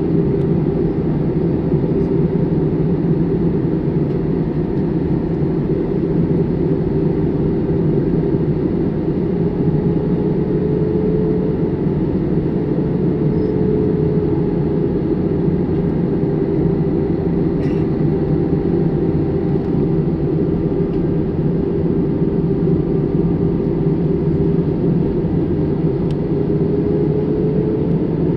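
Airliner cabin noise in flight: the steady drone of the engines and airflow, with a faint held hum that rises slightly near the end.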